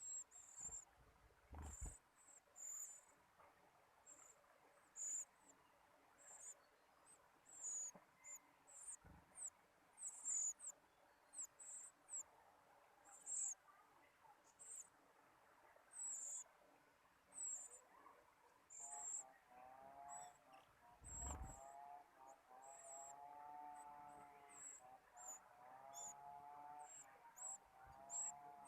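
Faint high-pitched bird chirps, short and repeated at irregular intervals, with a lower, repeating call joining about two-thirds of the way in.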